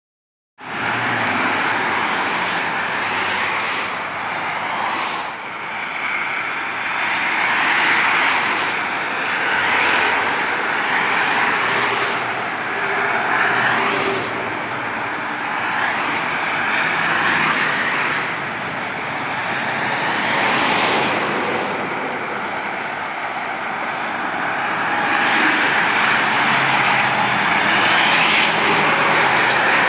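Interstate traffic passing below: a continuous rush of tyre and engine noise from cars and trucks that swells and eases every few seconds as groups of vehicles go by.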